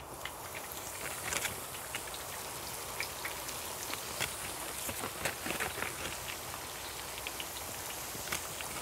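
Breaded cutlet deep-frying in a pot of hot oil: a steady sizzle full of small crackles and pops.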